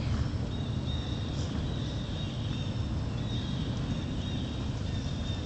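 Steady low rumble of wind buffeting the microphone, with faint short high-pitched chirps now and then.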